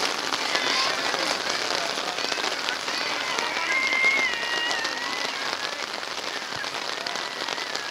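Rain pattering on a surface close to the microphone: a dense hiss of many fine drop ticks. A brief high drawn-out call rises over it about four seconds in.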